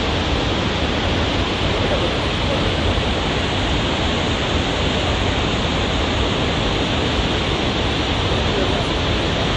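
Vøringsfossen waterfall: a loud, steady rush of falling water.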